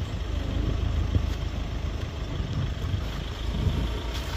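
Vehicle engine idling with a steady low rumble.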